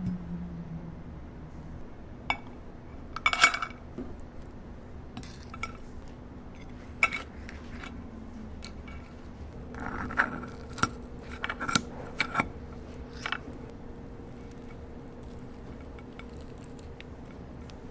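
Metal serving tongs and spoon clinking and scraping against ceramic dishes as grilled lobster halves are lifted onto a plate, in scattered sharp knocks, loudest about three seconds in and again in a run around ten to twelve seconds in. A steady low hum runs underneath.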